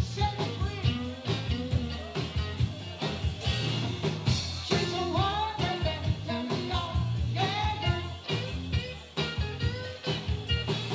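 Live 1960s-style garage rock band playing: two electric guitars and a drum kit, with a man singing lead.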